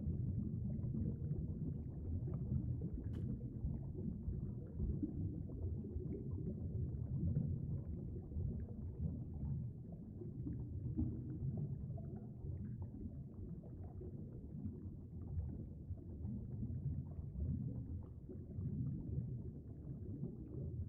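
Steady, low rumble of flowing stream water heard through an underwater camera's housing, with one faint click about three seconds in.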